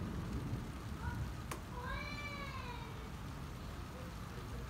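A cat meowing once, a single drawn-out call that rises and then falls in pitch, with a sharp click just before it, over steady low background noise.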